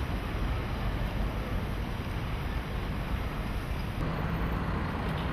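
Wind rumbling on the microphone over a low outdoor rumble as a line of Buddy (Kewet) electric micro cars rolls by on cobblestones. The cars themselves make little sound. About four seconds in the sound changes and a steady low hum comes in.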